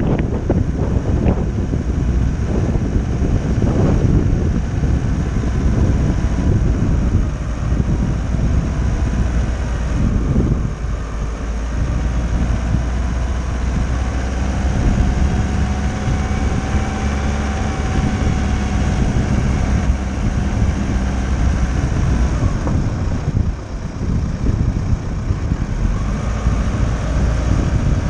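VW T6 camper van driving downhill: steady road and engine rumble, with wind buffeting the microphone.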